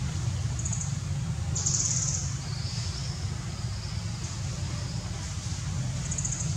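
Outdoor ambience: a steady low rumble under short, high-pitched pulsed chirping calls. The chirps come briefly about half a second in, louder for about half a second around two seconds in, and again near the end.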